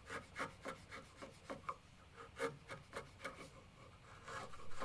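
Wood chisel paring dense osage orange on a gunstock, used like a hand plane: a quick, irregular run of short scraping cuts, one stronger about halfway through.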